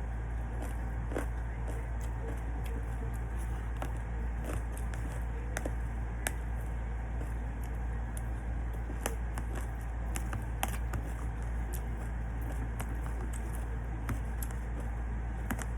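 A person eating: mouth and chewing sounds with scattered light clicks of tableware, over a steady low hum.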